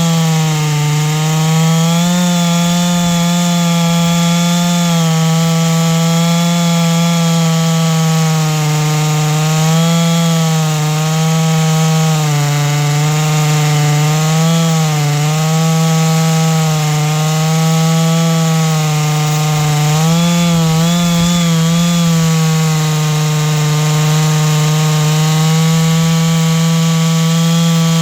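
Chainsaw running under steady load while ripping lengthwise through a large black oak log in a milling cut, the chain self-feeding through the wood. The engine note holds steady, with small dips and wavers in pitch a few times.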